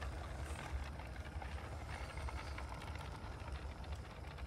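Radio-controlled model diesel locomotive and its train of small skip wagons rolling slowly along garden-railway track, wheels clicking and clattering irregularly, over a low steady hum.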